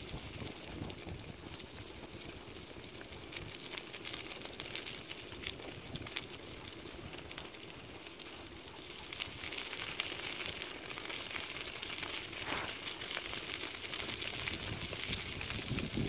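Dog scooter wheels rolling over a gravel and leaf-strewn track: a steady crackling rattle of small stones and leaves, louder from about nine seconds in.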